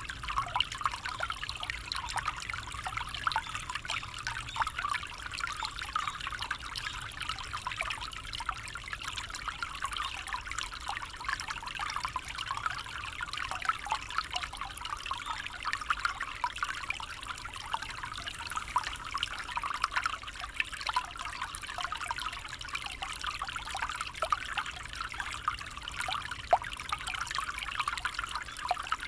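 A small stream trickling and babbling steadily over stones, with a constant bright splashing and many small quick gurgles.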